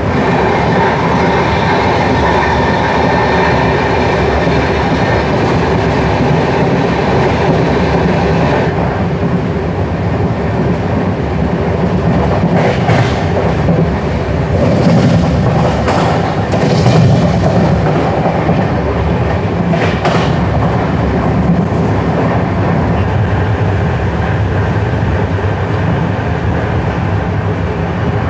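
Express passenger train running at speed, heard from the side of a coach: a steady rumble of wheels on rail, with a few sharp clicks over rail joints in the middle.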